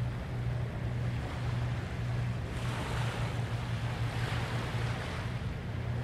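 Ocean waves washing onto a sandy beach, with one wave surging in about two and a half seconds in and then easing off. A steady low hum runs underneath.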